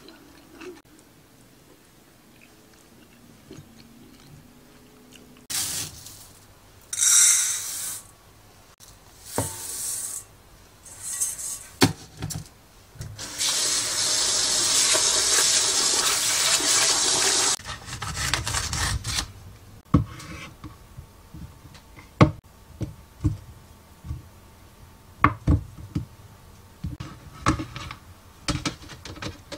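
Kitchen tap water running into a rice cooker's inner pot as rice is washed: a few short splashes first, then a steady stream for about four seconds. Scattered light knocks and taps of kitchen handling follow.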